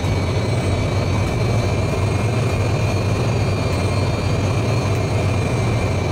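Jet aircraft engines running steadily in flight: a deep rumble with a constant high whine.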